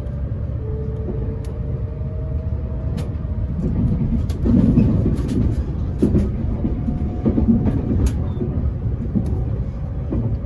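E257 series electric train running, heard from inside the passenger cabin: a steady low rumble with a faint whine and sharp clicks every second or so from the wheels on the track. The rumble grows heavier about four seconds in.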